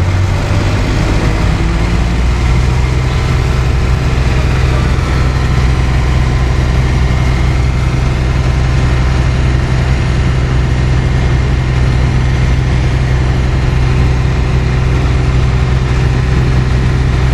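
Mobile crane's diesel engine running steadily while hoisting a heavy steel pipe truss; the engine speed steps up a little about two seconds in and then holds.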